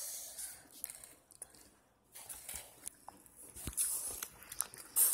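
Close-up eating sounds: chewing with scattered small clicks and knocks, and a louder rub near the end.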